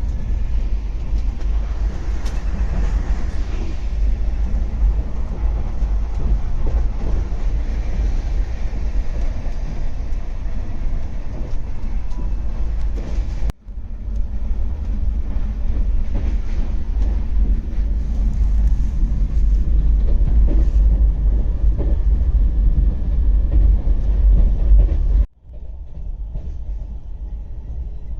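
Himsagar Express passenger train running at speed: a loud, steady heavy rumble of wheels on the rails. It cuts off abruptly about 13 seconds in and again near the end, and the last few seconds are quieter.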